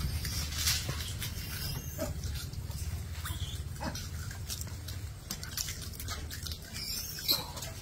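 Gray langurs feeding at close range: scattered short animal sounds and clicks over a steady low rumble, with one sharp louder sound near the end.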